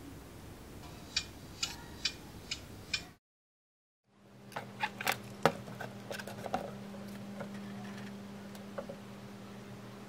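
Five sharp, evenly spaced clicks, then after a short gap, light irregular clicks and taps as a small plastic model car body and its LED wires are handled, over a steady low hum.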